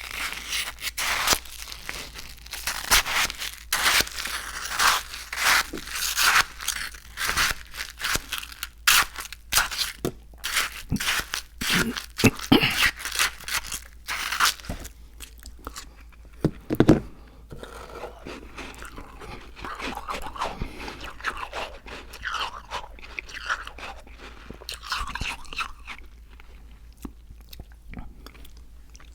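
Close-miked crunching, dense and loud through the first half, then sparser and quieter, with one loud thud about 17 seconds in.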